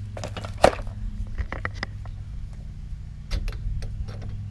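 Small metal clicks and clinks as a steel shifter linkage and its bolt are handled and fitted onto a pit-bike engine's shift shaft, with one sharper knock about half a second in. A steady low hum sits underneath.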